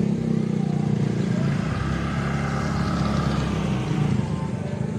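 Motor scooter engine running steadily as it rides past close by, slowly easing off toward the end.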